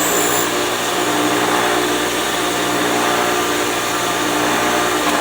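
Bench grinder running steadily while grinding MIG weld build-up on a Mopar camber bolt shaft back down to size, the weld having been laid in to fill grooves worn into the shaft. A thin high whine drops away about half a second in.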